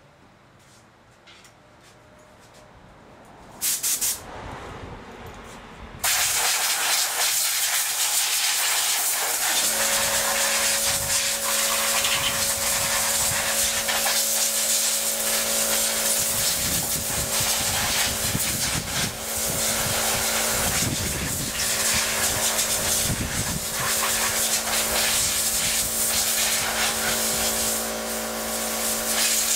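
Compressed air blowing from an air-hose nozzle to clean off a 15 HP Johnson outboard: two short blasts about four seconds in, then a loud continuous hiss from about six seconds on. A steady machine hum joins under the hiss about ten seconds in.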